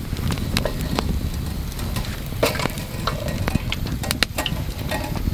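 Wood campfire crackling, with irregular sharp pops and snaps over a steady low rumble.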